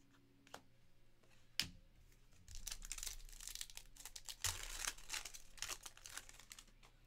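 A 2023-24 Panini NBA Hoops card pack being torn open, its wrapper crinkling. There are a couple of light clicks, then a dense crackling rustle begins about two and a half seconds in.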